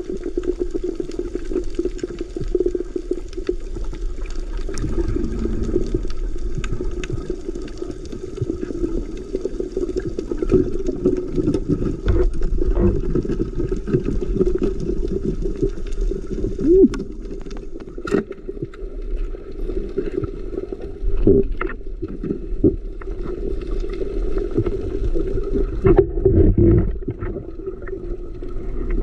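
Muffled underwater noise heard through a waterproof camera housing: a steady water rush and gurgle, with scattered sharp clicks.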